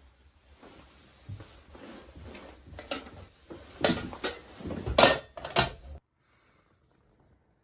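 Irregular knocks and clatters of objects being handled, the loudest about four and five seconds in. The sound cuts out suddenly about six seconds in.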